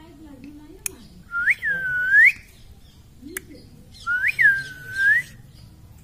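Two clear whistled notes, each dipping and then rising in pitch, the second a few seconds after the first, with a short sharp click before each.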